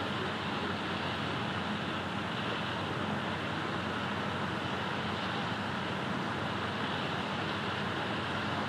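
Steady ambient background noise, an even hum with no distinct events.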